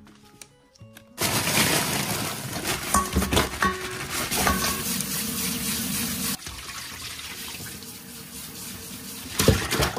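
Kitchen tap running water into a stainless steel bowl of raw shrimp in a steel sink, with a plastic bag rustling as the shrimp are tipped into the bowl. It is loudest from about a second in to about six seconds, then steadier and softer.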